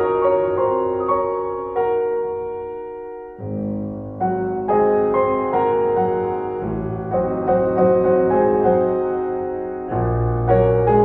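Piano music: slow notes that strike and ring out, with deeper chords coming in about a third of the way in and again near the end.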